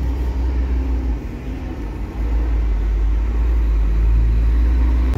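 Low road rumble and engine noise inside the cabin of a moving car, growing louder about two seconds in.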